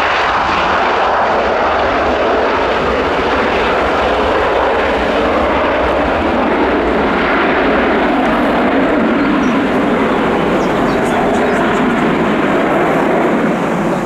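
Twin jet engines of a Boeing 737-800 airliner running loud as it rolls along the runway, a steady rush of jet noise that deepens toward the end as the aircraft moves away.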